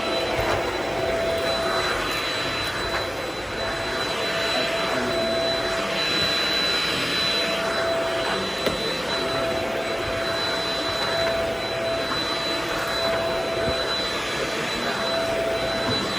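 Vacuum cleaner running steadily: a constant motor whine with airflow hiss that swells and fades every few seconds.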